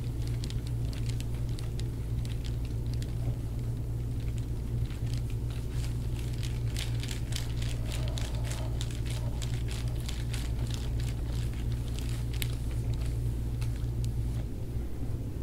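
Soft crackling and clicking of a forearm pressing and sliding over oiled bare skin during a deep-tissue back massage, densest in the middle stretch, over a steady low hum.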